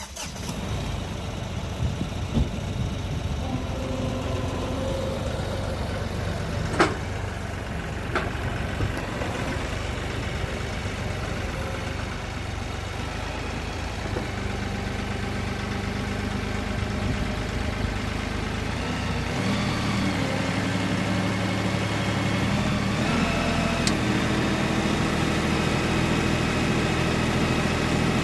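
Kioti NX4510 tractor's diesel engine running steadily, its pitch stepping up about a third of the way in and again about two-thirds in as it is revved to lift a heavy rock on its forks. A sharp click about seven seconds in.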